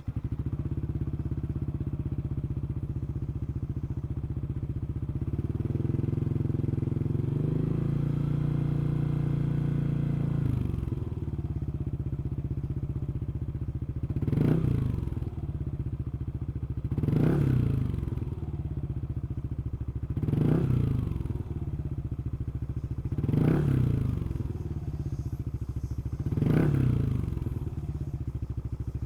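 Yamaha NMAX155 scooter's single-cylinder engine running through a Yoshimura machine-bent GP-MAGNUM Cyclone exhaust. It starts up suddenly and idles, with the idle rising a little for a few seconds. From about halfway through it is blipped five times, one short rev roughly every three seconds, each dropping straight back to idle.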